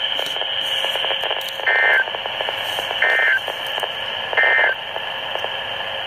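Emergency Alert System end-of-message data bursts from a weather radio: three short, identical two-tone digital chirps about a second and a half apart, marking the end of the severe thunderstorm warning. Steady radio static hiss runs under them.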